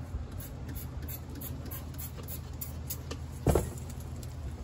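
Steady low background rumble with faint scattered ticks, and one short dull thump about three and a half seconds in.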